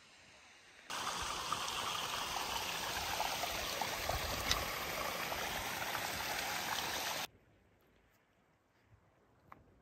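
Small mountain stream running over rocks, a steady rush of water that starts suddenly about a second in and cuts off abruptly near the end, leaving only faint quiet.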